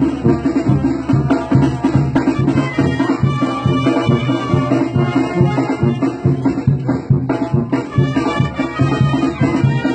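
Brass band playing a corrido, with drums keeping a steady beat.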